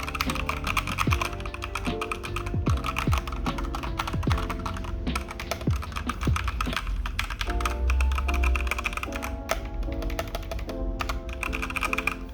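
Fast typing on a Redragon K617 Fizz 60% mechanical keyboard with red switches, a dense run of key clicks, over background music with a bass line.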